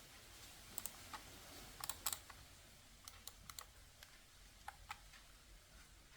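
Keys on the Aula F99 mechanical keyboard pressed a few at a time: about a dozen faint, irregular clicks in small clusters, the loudest pair about two seconds in.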